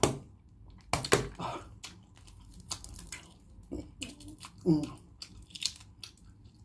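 Crackling clicks of a boiled duck egg's shell being cracked and peeled by hand, loudest near the start and about a second in, with a brief murmur of voice near the middle.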